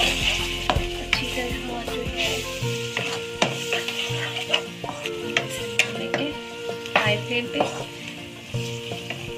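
A metal spatula stirring and turning minced beef, chopped tomatoes and spices in a hot pan. The food sizzles steadily, and the spatula makes repeated sharp clicks and scrapes against the pan. The sizzle is strongest near the start.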